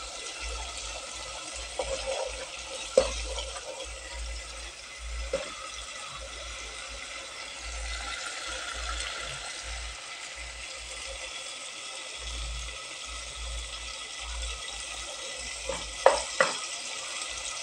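Onions, tomatoes and tomato paste frying in a pan, with a steady sizzling hiss as a spoon stirs the mixture and a few sharp knocks of the spoon against the pan.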